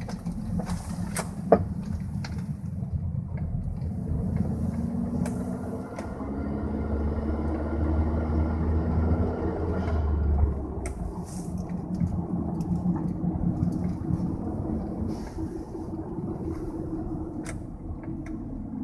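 A 2003 Volkswagen Jetta 1.8T heard from inside the cabin while driving, with one loud knock about a second and a half in, the knock that happens when turning right. The engine and road noise carry on throughout. The engine pitch climbs over a few seconds and drops about halfway through.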